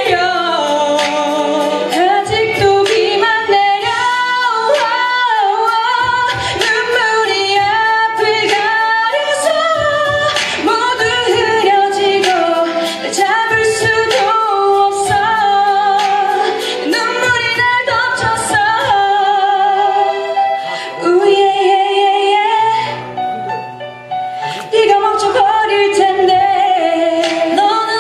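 Two female singers performing a pop ballad duet, taking turns on the lead over a backing track with a steady beat. The music dips briefly about three-quarters of the way through.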